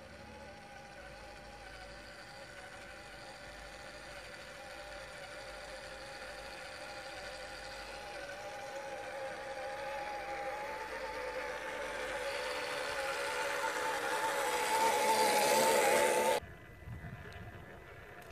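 Toyota Hilux driving through a puddle toward the listener: a steady whine with a higher tone above it, joined by a growing hiss of water and tyres, gets steadily louder and then cuts off abruptly about two seconds before the end.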